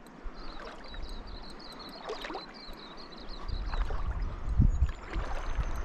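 Soft splashing and lapping of river water, with low rumbling bumps that grow from about halfway through.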